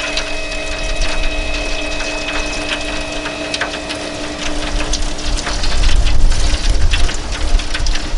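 Weber rotisserie's electric motor whirring steadily as the spit turns, with the crackle of baste dripping into the hot drip pan below. A low rumble of wind on the microphone swells about five seconds in.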